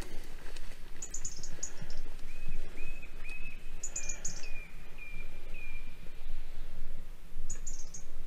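Small birds calling in the hedgerow: three short bursts of very high, quick chirps and, in between, a run of about eight evenly spaced whistled notes.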